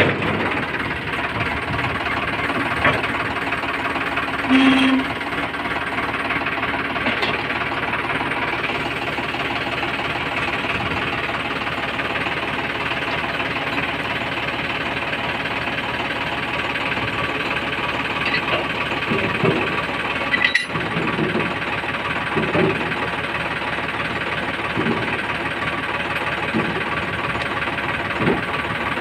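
Sonalika DI 740 III tractor's diesel engine idling steadily. A few short metallic clanks come from the rear hitch linkage, mostly about two-thirds of the way through.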